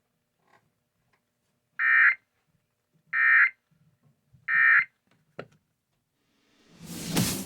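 Emergency Alert System end-of-message data signal from a NOAA Weather Radio broadcast: three identical short digital tone bursts about a second and a half apart, marking the end of the alert. A brief click follows, then electronic music comes in near the end.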